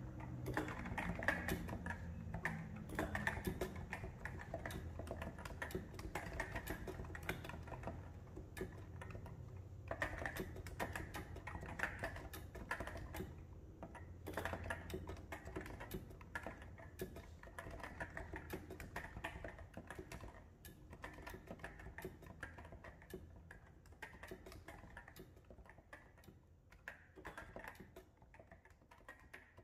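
Continuous typing on a Realforce R2 RGB keyboard with Topre electrocapacitive rubber-dome switches and SA-profile keycaps: a dense, rapid stream of keystroke clacks that gradually grows quieter towards the end.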